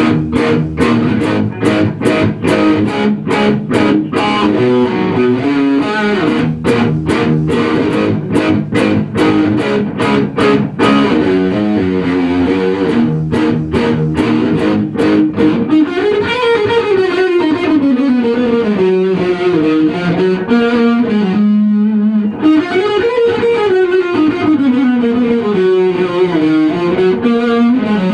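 Electric guitar music played through effects. Sharp, rhythmic hits run through roughly the first ten seconds, then a melody line slides up and down in repeated swoops through the second half.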